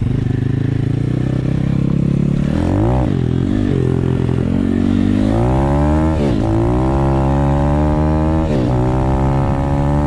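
Single-cylinder dirt bike engine pulling hard under the rider. Its pitch climbs, then drops sharply three times as it shifts up through the gears.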